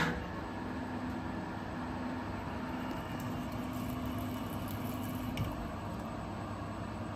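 CNC milling machine cutting an aluminium part with a small tool: a steady machine running noise, with a low hum that comes and goes through the middle. A sharp click right at the start.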